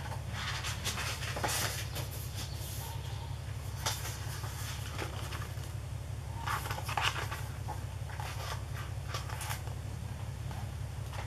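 Pages of a hardcover book being turned and handled: scattered paper rustles and light taps over a steady low hum.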